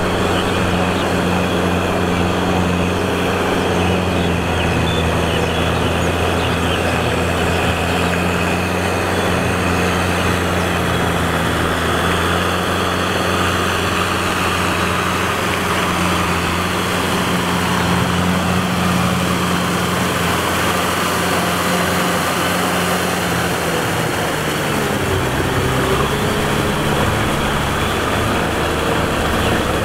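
Diesel farm tractor engine running steadily under load while its rear rotavator churns mud and water in a flooded rice paddy. About three-quarters of the way through, the engine note drops and wavers.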